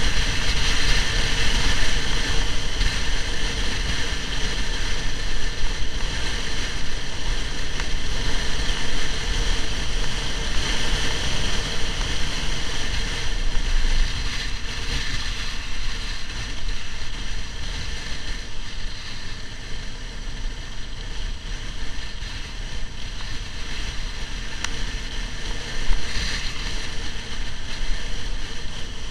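Wind rushing and buffeting over the microphone of a camera on a moving motorcycle at road speed, mixed with the bike's engine and tyre noise, as a steady, loud rush with deep rumble. Near the end there is one brief louder burst.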